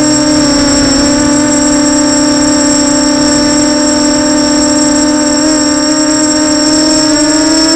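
Brushless motors and 6045 bullnose propellers of an FPV multirotor, heard from its onboard camera in flight: a loud, steady buzzing hum with a thin high whine above it, rising slightly in pitch near the end as the throttle comes up.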